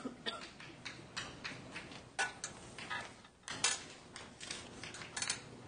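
Handwriting on a board during a lecture: quick, irregular taps and short scratches of the writing tool, with a brief stop about three and a half seconds in.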